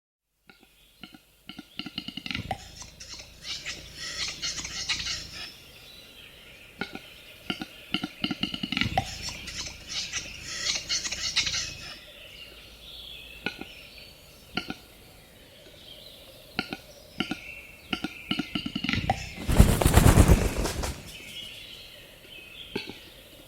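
Capercaillie calling: a long run of dry clicks and pops, with scraping, hissing phrases between them. About twenty seconds in comes a loud, noisy rush lasting over a second.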